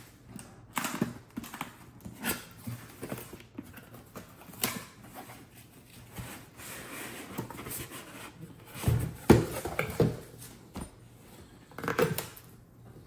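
A cardboard box being opened by hand: flaps pulled and folded back with scraping, rustling and small knocks. A cluster of dull thumps about nine to ten seconds in is the loudest part, with another knock near the end, as a padded tool bag is lifted out and set on the wooden table.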